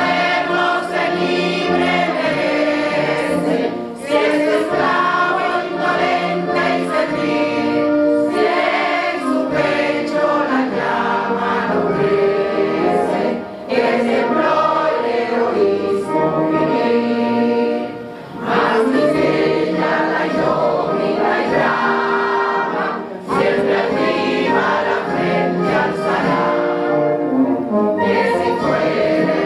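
Choir singing, in long held phrases with a few brief pauses between them.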